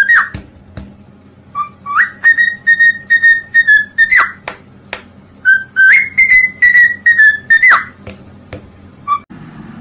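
Loud, clear whistling: a short note at the start, then two long held notes around 2 kHz, each swooping up at its start and sliding away at its end, with a few short notes between them.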